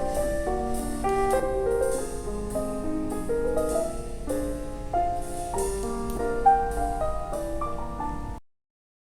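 Background piano music, a steady run of notes that cuts off suddenly about eight and a half seconds in, leaving silence.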